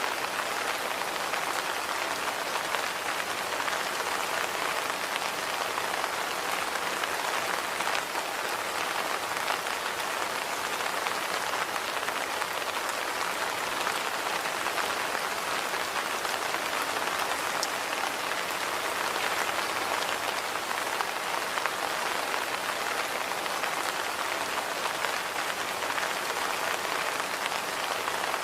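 Steady rain falling on hard surfaces, an even patter with scattered individual drops.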